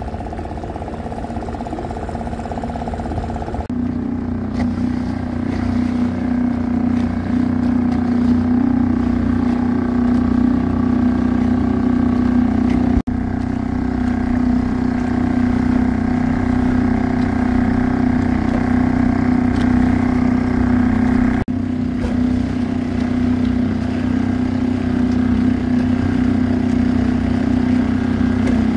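Small outboard motor running at a steady speed, a constant pitched hum.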